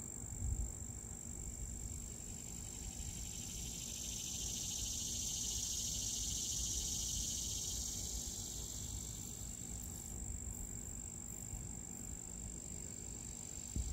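Insects singing outdoors: a steady high-pitched buzz throughout, with a louder buzzing chorus swelling up in the middle and fading away over several seconds. Under it is a low rumble, with a soft bump near the start and another near the end.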